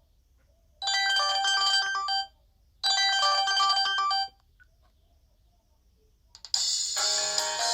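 Philips 530 mobile phone ringtone from its Casio/Oki synth: a short melody of several notes played twice with a brief pause between. Near the end, after a pause, another, fuller ringtone begins.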